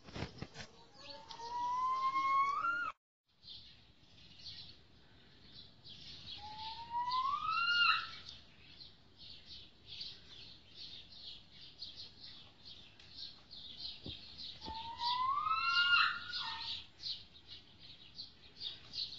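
Captive snowcock calling: three long whistles, each climbing slowly in pitch and ending in a sharp upward flick, several seconds apart. Rapid high chirping of small birds runs underneath.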